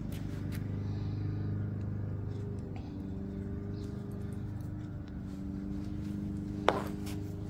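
A steady low engine hum, with one sharp click near the end.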